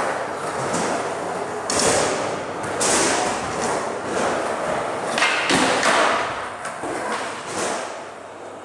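Skateboard wheels rolling on a concrete floor, broken by several sharp clacks of the board popping and landing during flatground tricks.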